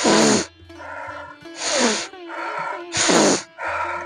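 A person doing a yoga breathing exercise, breathing hard and audibly: three forceful out-breaths through the mouth, about a second and a half apart, with softer in-breaths between them. Soft background music runs underneath.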